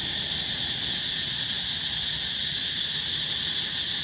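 Insect chorus in the trees: a dense, steady, high-pitched drone that does not change.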